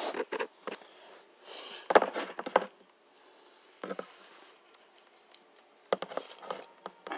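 Plastic Power Rangers Lightning Collection action figures being handled and posed. Short bursts of rustling and sharp clicks, a few times with quieter gaps between.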